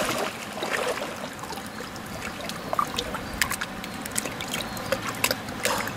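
Lake water lapping and dripping as a large Mekong giant catfish is lifted out of it by two men standing in the water, with scattered small drips and splashes.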